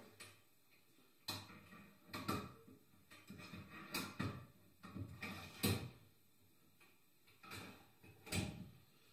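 Metal clicks and clunks of a deactivated Mark II Inglis Bren gun's steel parts being slid and seated together during reassembly. Several separate knocks come at uneven intervals, the loudest a little over halfway through.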